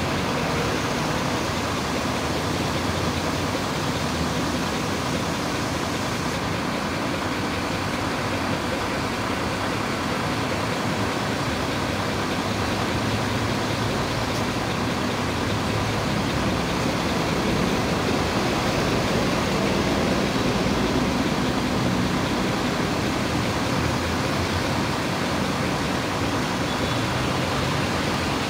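Steady rumble and hiss of an idling diesel engine, with a faint low hum.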